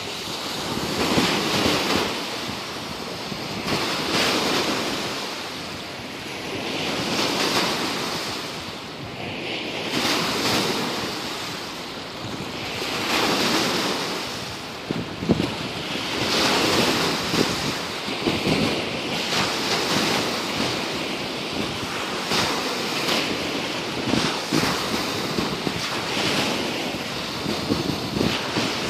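Waves on Lake Tahoe washing in, swelling and falling back about every three seconds, with wind buffeting the microphone.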